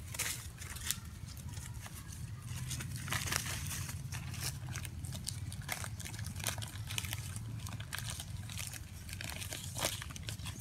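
Dry leaves crackling and rustling in irregular short bursts as long-tailed macaques shift about on the leaf-strewn ground, over a steady low rumble.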